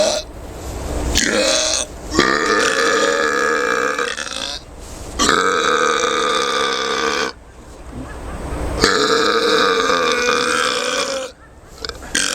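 Human belching: a short burp, then three long, drawn-out burps of about two seconds each, each held on a steady pitch, with short pauses between them.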